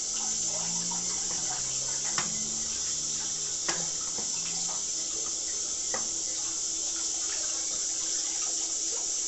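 Kitchen tap running steadily into a sink as bay leaves are rinsed under it, with a few faint knocks.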